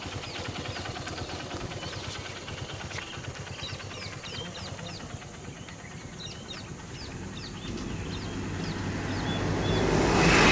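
A vehicle engine idling steadily, with short high bird chirps over it in the middle. Near the end a passing bus grows steadily louder as it comes up close.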